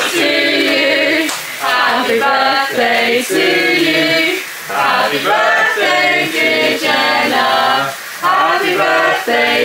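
A small group of people singing a birthday song together in mixed voices, with held notes and short breaks between lines.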